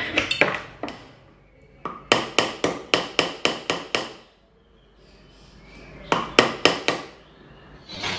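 A small hammer striking a silver piece on a metal stake: a run of about eight sharp strikes, about four a second, then a pause and a second, shorter run of about five. The first second holds the last strokes of a jeweller's saw cutting silver.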